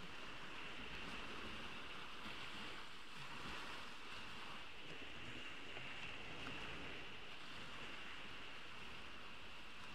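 Ocean waves washing onto a beach: a steady, even wash of surf with no single breaker standing out, and a constant high-pitched hiss running through it.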